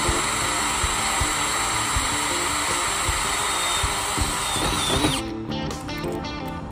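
Cordless drill boring into a steel bar, running steadily under load, then stopping about five seconds in.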